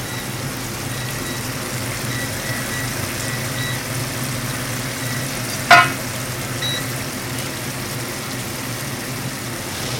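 Steady sizzling of food frying in hot oil over a low kitchen hum. One short, sharp, high-pitched sound cuts through about six seconds in.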